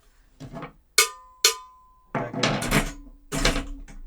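Metal foley prop, damped inside with Styrofoam, struck twice in quick succession with a brief metallic ring, then rattled and clattered in two longer stretches.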